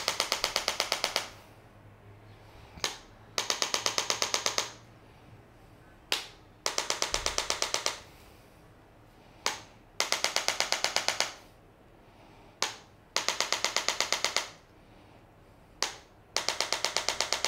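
Handheld impulse adjuster, a chiropractic adjusting instrument, firing rapid trains of clicks into the lower back. Each train has about a dozen clicks in a little over a second and follows a single click. The trains repeat about every three seconds, six of them in all.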